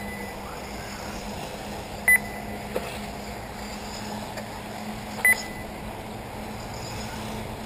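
Three short, high electronic beeps, about two and then three seconds apart, over a steady low hum.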